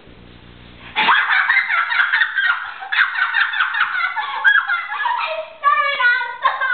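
A girl's voice squealing and giggling at a very high pitch, starting suddenly about a second in, after a low hum.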